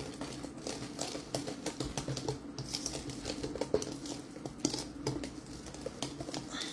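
Wire whisk stirring flour into wet cake batter in a stainless steel bowl, its wires ticking and clicking quickly and irregularly against the metal.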